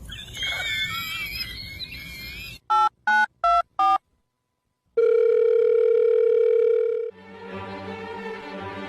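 Four short touch-tone phone keypad beeps, a second of silence, then a steady telephone tone for about two seconds, after which string music comes in. Before the beeps there is a wavering high-pitched sound.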